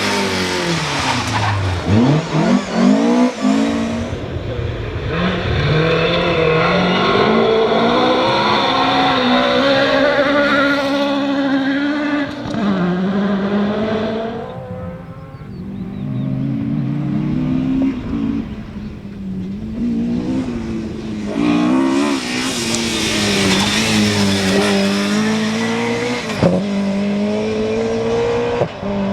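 Classic Ford Escort rally cars at full effort, their four-cylinder engines revving hard, the pitch climbing and dropping again and again with gear changes and lifts, across several different cars in turn. A single sharp crack about three-quarters of the way through.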